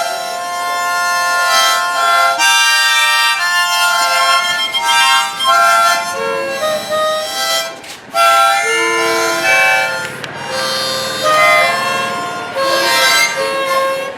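Hohner Marine Band diatonic harmonicas played together, a lively tune of chords, with a brief break about eight seconds in.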